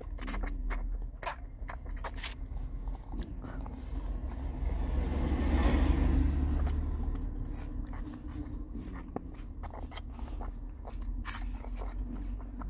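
Low, steady rumble of a moving car heard from inside the cabin, swelling and fading about five to seven seconds in, with small clicks and fabric rustles from handling close to the microphone.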